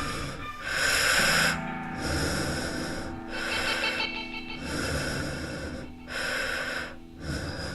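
Heavy, loud breathing: about six long breaths, each lasting around a second, over background music with held low notes.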